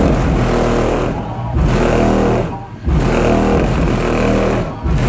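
Bass-heavy music played loud through three Sundown SV3 15-inch subwoofers on a CT Sounds 10K amplifier, heard from outside the truck and rattling its body. The bass drops out briefly three times.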